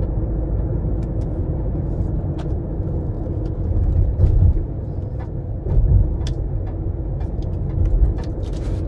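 Car driving, heard from inside the cabin: a steady low road and engine rumble with a faint hum. Three louder low thumps as the tyres go over bumps or joints in the road, and scattered light clicks and rattles.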